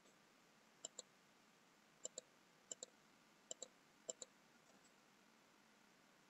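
Faint computer mouse clicks: five clicks spread over about three and a half seconds, each a quick press-and-release pair.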